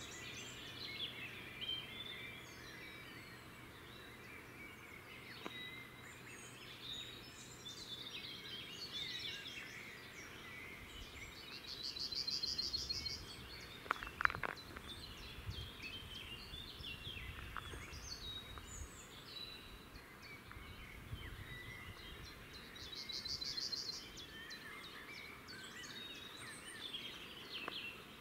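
Several songbirds singing and calling in woodland, with many short chirps and two rapid trills about ten seconds apart.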